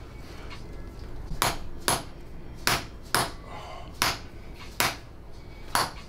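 Mallet striking a rod held against a man's back in a hammer-and-rod chiropractic adjustment. There are seven sharp clacks, irregularly spaced, some in quick pairs, beginning about a second and a half in.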